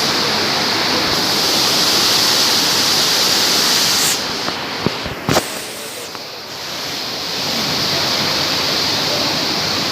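Waterfall rushing, a steady loud hiss of falling water. About four seconds in it drops away for roughly two seconds, and two short sharp clicks sound in the middle of that gap.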